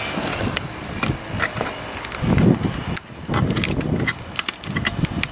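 Knocks, clicks and rough scraping from a motorcycle seat being handled as its PVC cover is pulled away from the foam padding. There are two longer rubbing stretches in the middle.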